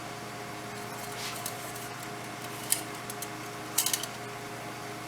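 A few light clicks and rattles of handling at the engine bay: one sharp click, then a quick cluster of clicks about four seconds in, over a steady hum.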